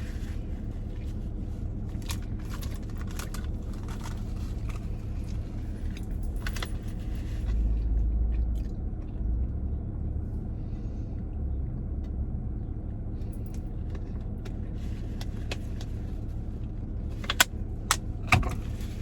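Low steady hum of a car's engine heard from inside the cabin, swelling briefly about eight seconds in, with scattered light clicks and a few sharper clicks near the end.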